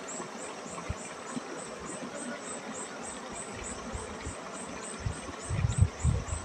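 An insect chirping high and evenly, about four chirps a second, over a steady background hiss. A few low thuds come about five seconds in.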